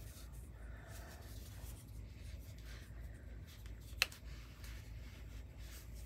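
Quiet room tone with a faint low hum and soft faint rustling, broken by one sharp click about four seconds in.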